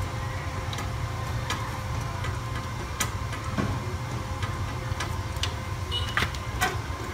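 Inverter stick welder idling: a steady low hum with a faint steady whine, and scattered light clicks and ticks from the welding leads and clamps being handled.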